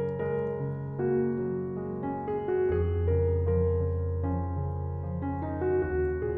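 Background piano music: a melody of changing notes over held bass notes.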